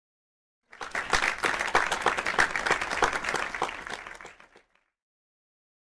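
Audience applause: a dense patter of many hands clapping starts suddenly under a second in, then thins out and dies away after about four seconds.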